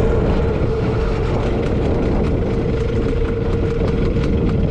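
Outboard motor of a small aluminium boat running steadily at low revs: a constant hum over a low rumble.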